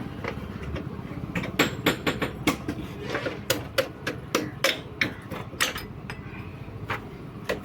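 Hammer tapping on metal while a motorcycle's rear wheel is fitted onto its axle: many quick, irregular sharp knocks, starting about a second in.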